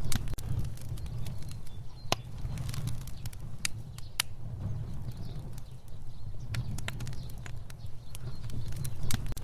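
Fire burning: a steady low rumble of flames with scattered sharp crackles and pops, the loudest about two and four seconds in.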